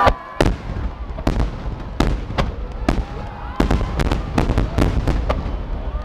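Fireworks bursting overhead in a rapid, irregular run of sharp bangs, more than a dozen, with a low rumble between them.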